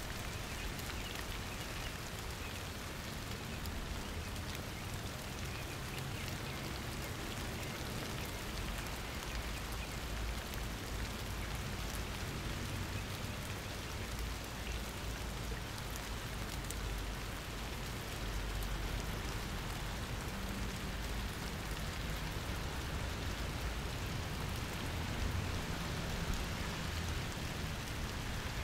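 Steady rain falling, an even hiss with scattered drop ticks on surfaces. A low rumble underneath grows stronger past the middle.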